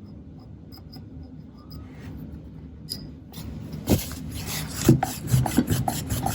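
Rubbing on the body of a Kodak Instamatic 100 camera as polish is worked in, a scratchy wiping sound with a few knocks from handling the camera. It starts about three seconds in.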